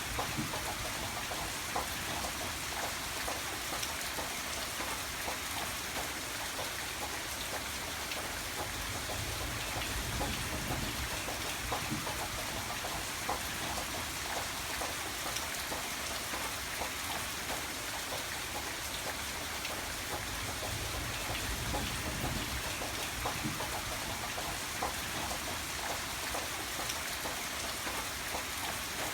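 Steady rain falling, with many close drops pattering on a hard surface and a low rumble of rain underneath.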